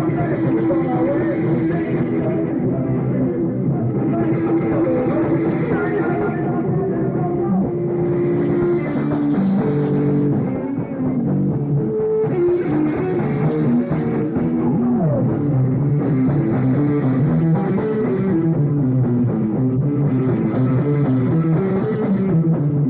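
Live rock band playing an instrumental passage, with guitar and drum kit, the notes moving in a repeated riff.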